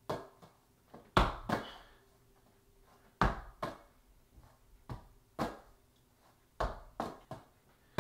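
About ten sharp knocks and thumps at irregular intervals, several in quick pairs; the heaviest come about a second and about three seconds in.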